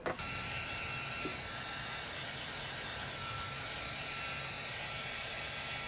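Hand-held hot-air blower switches on and runs steadily, a rushing blow of air over a thin motor whine, drying moisture out of a water-damaged car audio amplifier.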